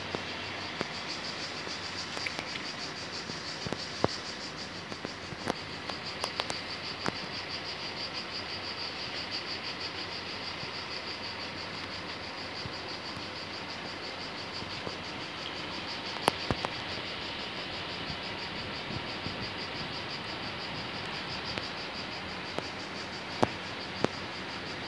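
Cicadas chirring steadily, a dense high buzz that pulses rapidly, with a few sharp clicks scattered through it.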